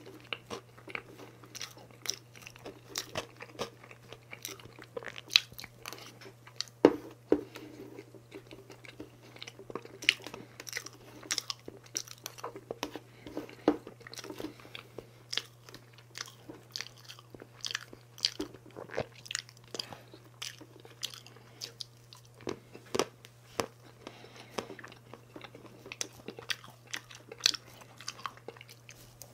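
Close-miked eating of chocolate layer cake with a metal spoon: chewing, lip smacks and many irregular sharp clicks, over a steady low hum.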